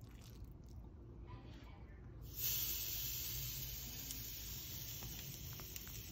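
A hiss starts suddenly about two seconds in and slowly fades.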